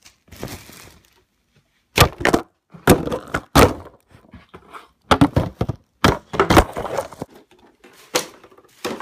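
Empty plastic water bottles being handled and dropped into a plastic trash bag: short bursts of clattering and crackling plastic with pauses between them.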